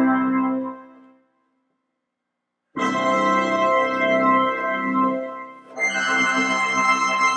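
Music of held organ chords: one chord dies away within the first second, then a second and a half of silence, then a sustained chord comes in about three seconds in and gives way to another just before six seconds.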